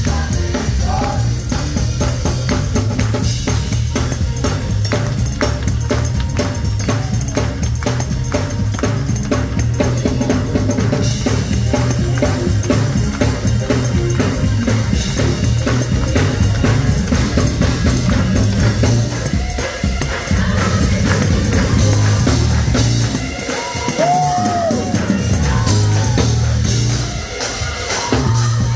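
Live gospel music from a church band: a drum kit playing a steady driving beat over a heavy bass line. The bass drops out briefly about 23 seconds in, then comes back.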